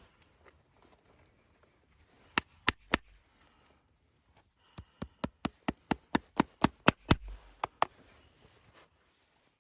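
Farrier's hammer striking metal: three blows, then a run of about a dozen quick blows at roughly four a second, each with a short ring.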